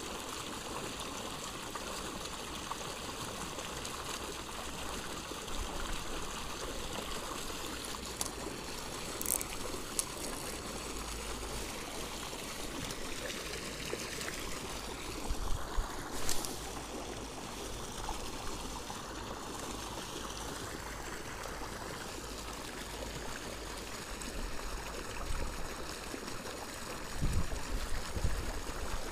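Steady rushing splash of water jetting from an outlet pipe onto the lake surface. A few short knocks and low thuds stand out over it, the loudest about halfway through and near the end.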